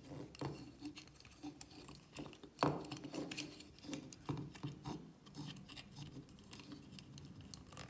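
Handling noise from a wooden cord-and-knob disentanglement puzzle: scattered soft clicks of wooden parts and cord rubbing against the wood as fingers thread the loop, with one sharper knock a little over two and a half seconds in.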